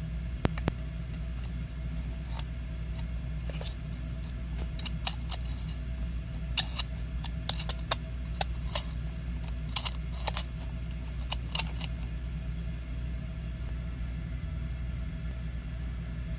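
Scattered sharp clicks and crackles, about a dozen, mostly in the middle of the stretch, over a low steady hum.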